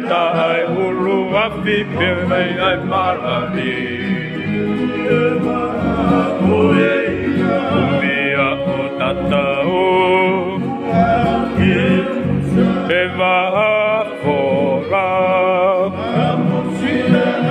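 Men singing a song together, accompanied by strummed acoustic guitars and an electric bass guitar.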